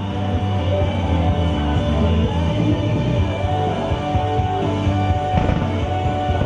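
Rock music soundtrack playing over the show's outdoor loudspeakers, heard on location.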